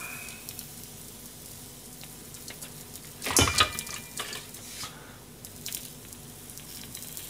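Bread frying in butter in a frying pan, sizzling gently and steadily. A short clatter of handling comes about three and a half seconds in, with a few light clicks after it.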